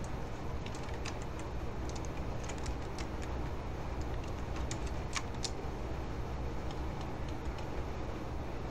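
Steady low hum of background noise, with a scatter of light, sharp clicks during the first half that stop after about five and a half seconds.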